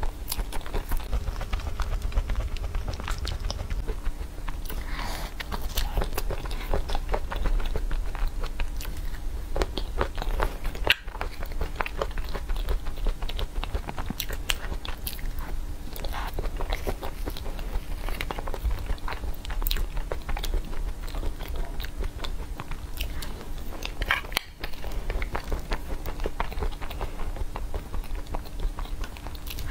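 Close-miked eating sounds of a soft cookies-and-cream dessert: wet chewing and mouth smacks, with clicks and scrapes of a metal spoon in the plastic tub. The small sharp clicks come in a dense, steady stream.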